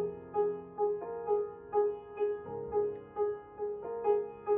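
Background piano music: a gentle tune of evenly spaced notes, about two a second.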